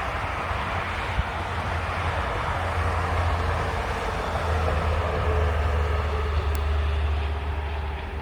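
Train noise: a steady low rumble with a constant drone, growing somewhat louder through the middle and latter part, with a faint thin tone appearing about halfway in.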